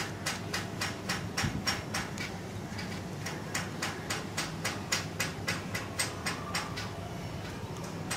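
A fast, even series of sharp taps, about four a second, over a steady low hum.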